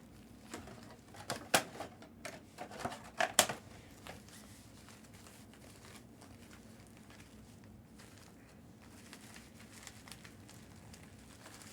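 Packaging handled and opened by hand: a quick run of sharp crinkles and crackles in the first few seconds, then only faint rustling.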